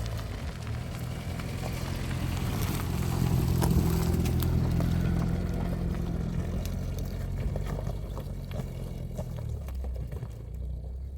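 A motor vehicle's engine running steadily, growing louder over the first few seconds and then slowly fading, as when a car drives past or pulls away.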